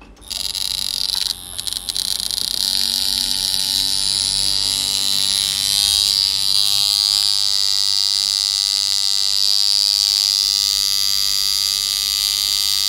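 Electric tattoo machine buzzing steadily, run at the power setting the tattooist works at. It starts a moment in and falters briefly about a second and a half in.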